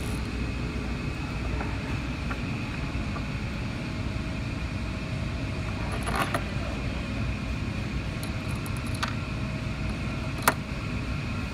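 Metal tools and hardware clinking as a bolt with a washer is fitted into a plastic housing and turned with a nut driver: a short rattle of clicks about six seconds in, a single click near nine seconds, and one sharp click near the end that is the loudest. Under it runs a steady low rumble of background machinery noise.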